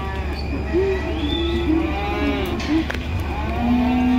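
Several cattle mooing, their calls overlapping, ending with one long, steady moo that starts near the end.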